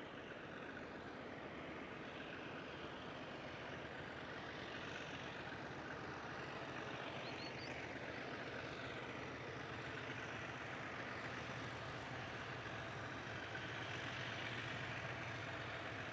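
Diesel locomotives working under power as they haul an empty grain train, a steady engine drone that grows slowly louder as the train draws closer.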